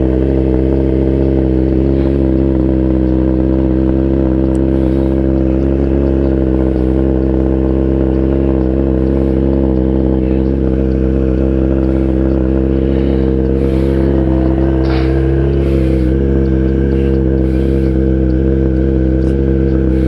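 Kawasaki ZX-10R's inline-four engine running at steady, unchanging revs.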